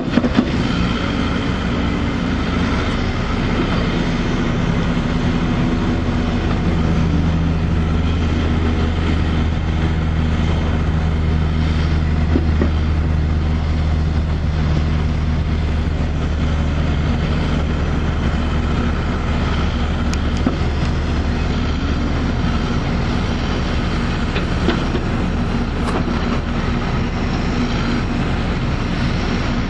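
Caterpillar backhoe loader's diesel engine running steadily while the machine compacts a freshly backfilled trench. Its low drone grows heavier about six seconds in and eases back around twenty-two seconds, with a few sharp clicks.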